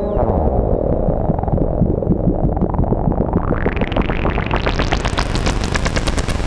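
Ciat-Lonbarde Peterlin synthesizer, run through the TX-6 mixer's reverb, putting out a dense crackling noise that grows steadily brighter while a knob is twisted, breaking up into fast clicking pulses in the last couple of seconds.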